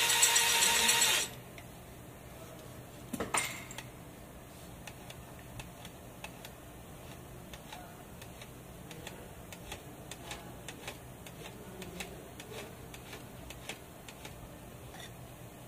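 Electric drill driving a homemade crank-type reciprocating-saw attachment runs steadily for about a second, then cuts off. After that come scattered light clicks and one louder knock about three seconds in as the tool is handled.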